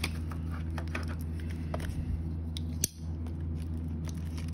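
Plastic shrink wrap crinkling and tearing as it is peeled off a trading card box, in scattered small crackles with one sharp click just before the 3-second mark, over a steady low hum.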